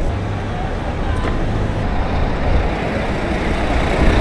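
Steady wind noise on the microphone of a bicycle's camera while riding, over the running of city traffic: cars and a bus moving close alongside.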